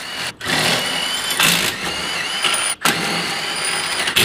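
Cordless impact wrench running in three long bursts, with short breaks about half a second in and near three seconds in, as it loosens nuts on the car's rear suspension.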